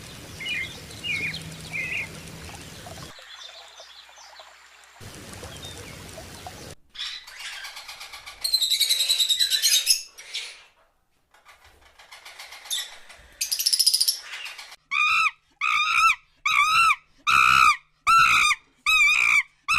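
Bird calls and chirps in several short, abruptly cut segments. The last few seconds hold a call repeated about one and a half times a second.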